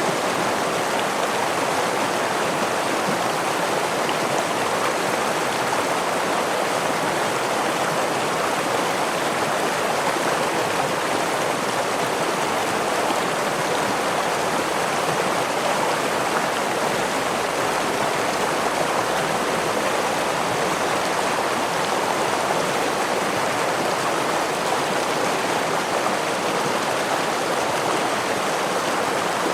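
Gentle stream with a small waterfall: water running steadily and evenly.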